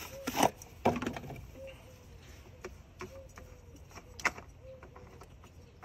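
A few sharp clicks and knocks of hands handling a new oil filter at an outboard engine under its open cowling, the loudest near the start and a little past four seconds in. A dove coos faintly and repeatedly in the background.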